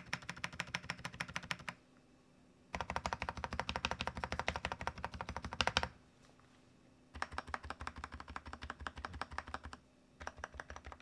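Stabilized keys (shift and Enter) of a Thinkway Tauche.T 301 mechanical keyboard pressed rapidly, about eight strokes a second, in four runs with short pauses between. The stabilizers sound well dampened, their noise well controlled, which the reviewer judges a clear improvement.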